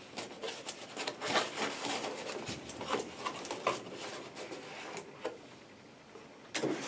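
Cardboard packaging handled: a cardboard plant sleeve scraping and rubbing in the hands, with rustles and light knocks as it is opened and a potted plant slid out. The handling dies down about five seconds in.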